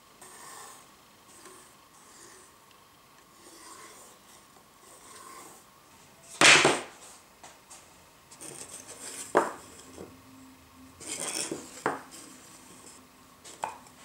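Handling wooden workpieces on a workbench. It opens with faint scratching strokes as a compass is drawn over a wooden board. About six and a half seconds in comes one loud, brief scrape, then rubbing and three sharp knocks, near the middle, late and near the end, as small wooden pieces are set down and fitted together.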